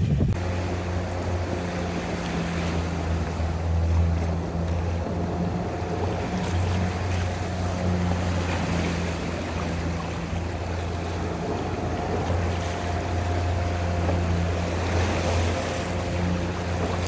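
A boat's motor running steadily, a low even hum that dips now and then, with water washing past the hull in choppy waves and wind on the microphone.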